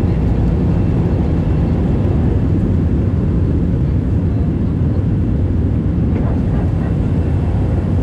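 Cabin noise of an Airbus A319 on its takeoff roll and liftoff: a steady, loud rumble of the engines at takeoff power.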